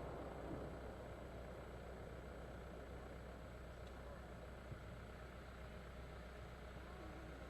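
A lull between fireworks: the echo of a big firework bang dying away at the start, then a faint steady low rumble, with one small pop past the middle.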